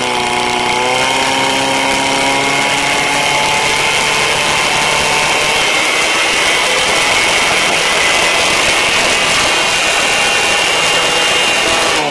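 Portable fire pump's engine running at full revs to drive water through the attack hoses. Its pitch climbs in the first second, holds steady, and starts to fall right at the end, with a steady hiss of water jets underneath.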